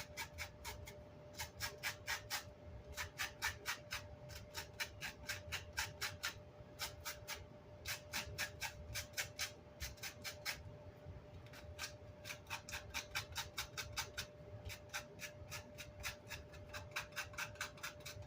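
Quick scrubbing strokes, several a second, on a Vox AC30 amp's grill cloth, working off wood and glue remnants in runs with short pauses. A faint steady hum runs underneath.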